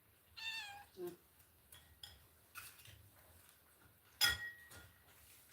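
A cat meows once, falling in pitch, near the start. About four seconds in comes a sharp ringing clink of a food dish, the loudest sound, with a few lighter taps around it.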